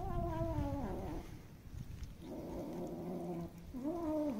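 Stray cats meowing: three calls, the first falling in pitch, a longer, rougher steady one in the middle, and a short one that rises and falls near the end.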